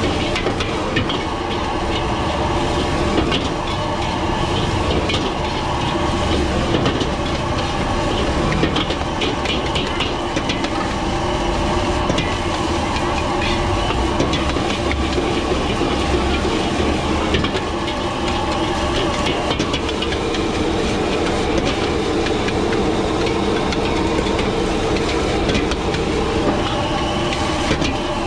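Gas wok burners running steadily under two woks while metal ladles scrape and clack against the steel, tossing fried rice that hisses as it fries.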